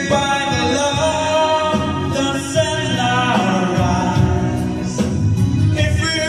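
A man singing into a microphone over backing music, holding long notes.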